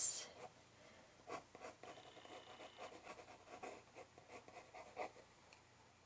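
Colored pencil drawing on paper: faint, short scratchy strokes as the lines are sketched in.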